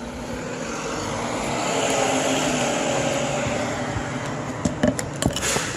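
A passing vehicle's noise swells to a peak about two seconds in and slowly fades, with a few sharp clicks near the end.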